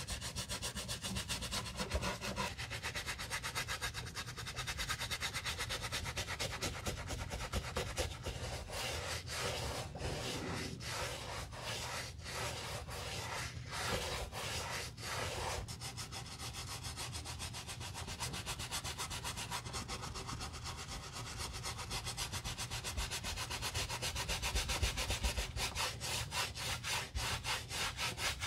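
A wooden-handled bristle brush scrubbing the lathered white leather of an Adidas Superstar sneaker in quick back-and-forth strokes.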